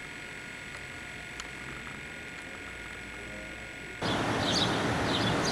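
Quiet room tone with a faint steady whine. About four seconds in it cuts to a louder, even outdoor background with small birds chirping in short repeated bursts.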